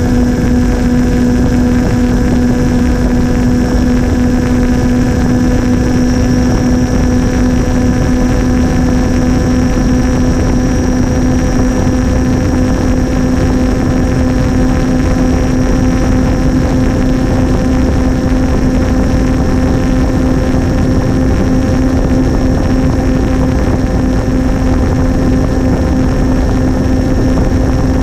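Sonicmodell Binary's twin 2212 brushless motors spinning APC 8x6 propellers, droning at one steady pitch in level cruise, with a faint high motor whine above it and airflow rushing past the airframe.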